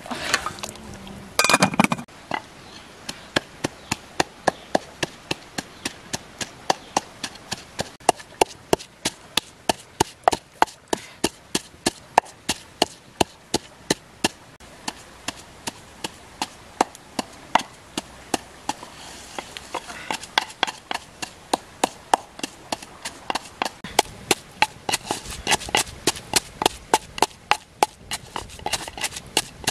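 Wooden pestle pounding red chilies in a clay mortar, a steady run of short dull knocks about two to three a second. A brief louder noise comes just before the pounding starts.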